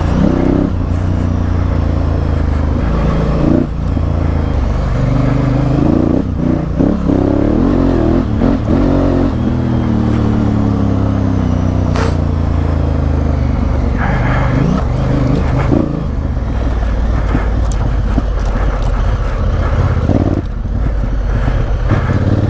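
Honda CRF1000L Africa Twin's parallel-twin engine running under way off road, the revs climbing and falling away as the throttle is worked, with a few sharp knocks.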